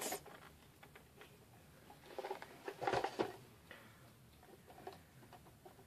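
Faint handling noises: a few light rustles and small knocks of objects being moved about on a desk, with quiet room tone in between.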